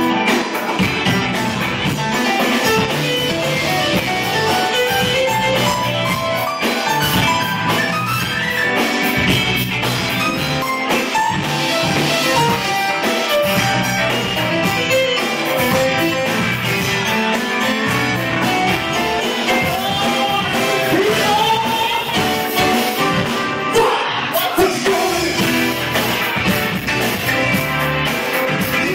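Live rock and soul band playing: a male singer over electric guitar, bass guitar, drum kit and keyboards, heard through a bar's PA.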